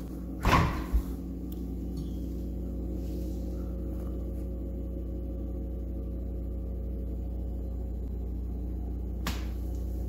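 Frigidaire Professional refrigerator door pulled open, with a short rush of noise about half a second in. Then a steady low hum with several steady tones, the fridge-freezer running, which the owner finds pretty noisy. A single click near the end.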